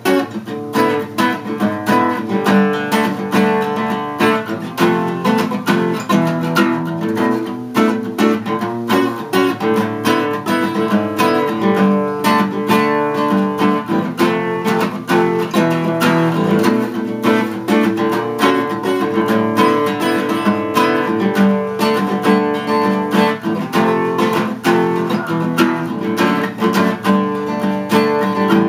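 Cutaway acoustic guitar strummed solo: quick, even strokes over ringing chords, with no singing.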